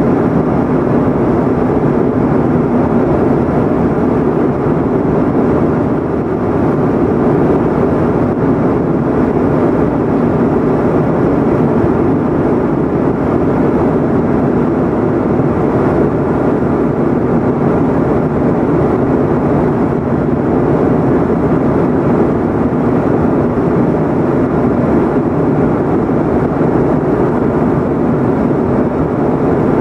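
Steady cabin noise of an airliner in flight: the even, deep rush of engines and airflow heard inside the passenger cabin, with no breaks or changes.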